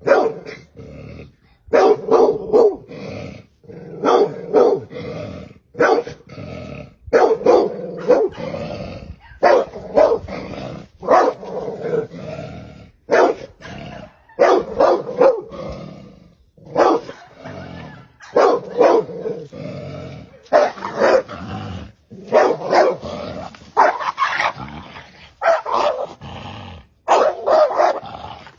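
A dog barking over and over, in short loud barks that come in quick clusters every second or two.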